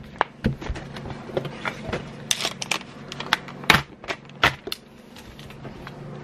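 Study things being gathered off a desk: irregular clacks and taps as a tablet, a smartphone and a stylus are picked up and set down on a spiral-bound notebook, over a low steady hum.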